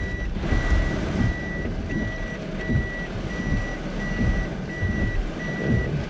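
Daihatsu Hijet Cargo's reversing warning beeper sounding as the van backs into a parking space: one steady high beep repeating evenly, a little more than once a second. Beneath it runs the rumbling noise of a heavy downpour on the van.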